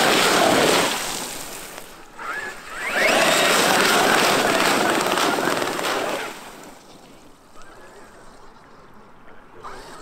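Traxxas X-Maxx brushless electric RC monster truck churning through a muddy puddle, its spinning tyres throwing up spraying water in two long surges: the first fades about a second in, the second runs from about three to six seconds, then it goes much quieter.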